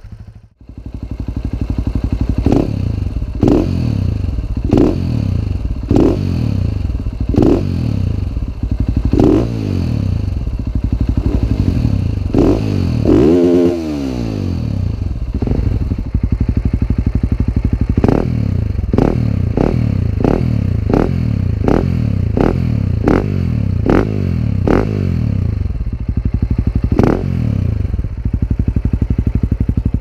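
Husaberg FE 390 four-stroke single-cylinder engine idling through an FMF Q4 muffler with its spark arrestor removed, blipped over and over: short throttle blips about once a second, one longer rev about halfway, then quicker blips after a few seconds of plain idle.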